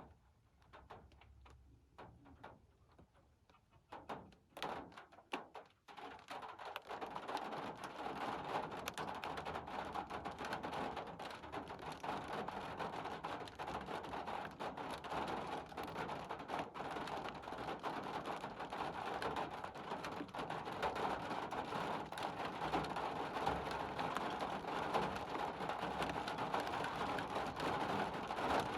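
Rain striking a surface: scattered separate drops at first, then about six seconds in it becomes a dense, steady downpour.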